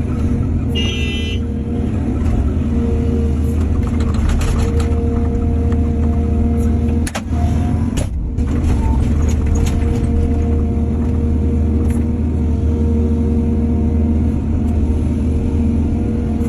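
Heavy diesel construction machinery running steadily under load, with a brief high squeal about a second in and several sharp clanks through the middle.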